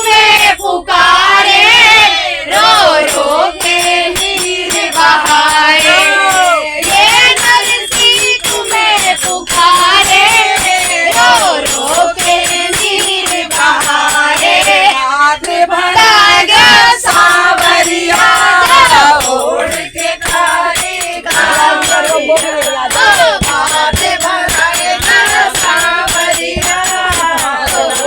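Group of women singing a Hindi devotional bhajan together, with jingling hand percussion keeping a steady rhythm.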